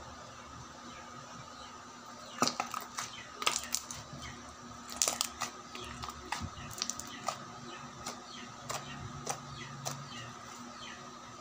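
Glitter slime being squeezed, kneaded and poked by hand, giving a series of sharp, wet clicks and pops that begin about two seconds in, come thickest around the middle, and thin out near the end.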